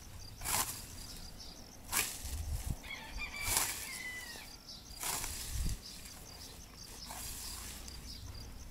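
Hand scythe swishing through tall, soft grass in about five regular strokes, roughly one every second and a half. A short bird call comes in the middle, over faint, even insect chirping.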